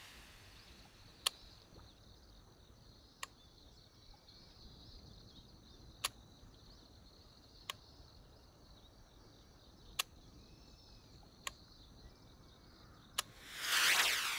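Baitcasting reel's spool whirring as a lure is cast near the end, swelling and then fading. Before it come seven sharp ticks a second or two apart, over a steady chirping of insects.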